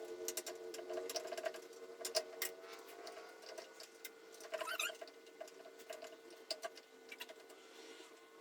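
Light, irregular clicks and taps of tools and small metal carburetor parts being handled during reassembly, over a steady hum. A brief squeak comes about halfway through.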